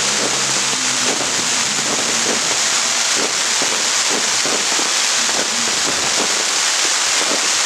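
Fireworks going off: a dense, continuous crackle with many sharp bangs at irregular intervals.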